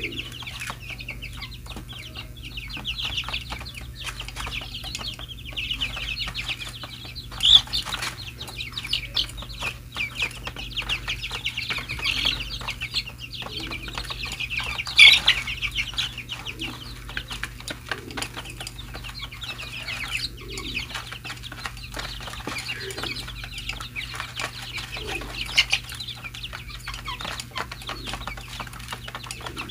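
A flock of young chickens peeping continuously in high chirps while they feed, with short clicks of beaks pecking grain from a plastic tray; a few louder calls stand out.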